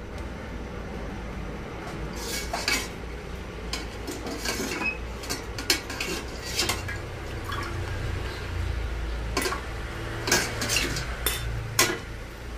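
Clinks, knocks and scrapes of a clear perforated colander bowl against a steel cooking pot as boiled jengkol beans are scooped out of the spiced cooking water and drained, a dozen or so irregular sharp strokes over a low steady hum.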